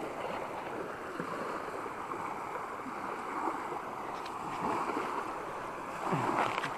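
Small waves washing onto a sandy shore: a steady hiss of surf.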